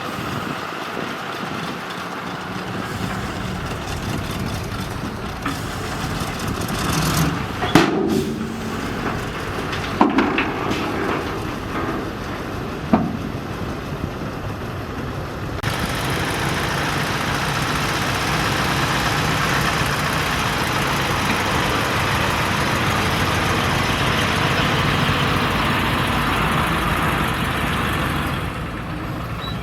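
Bulldozer's diesel engine running under load, with a few sharp knocks in the first half. From about halfway through, the engine grows louder and steadier.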